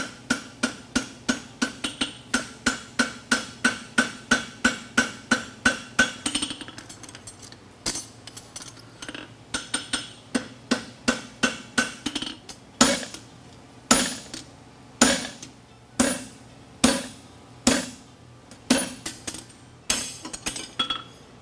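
Farrier's hammer striking a red-hot steel horseshoe on the anvil horn, shaping the shoe. It starts as a fast, even run of about three blows a second with the anvil ringing under them. About six seconds in this breaks into lighter, irregular taps, and then into heavier, separate blows about one a second.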